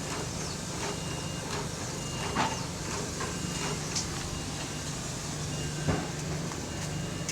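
A steady low mechanical hum with scattered knocks and clicks over it, two of them a little louder about two and a half and six seconds in.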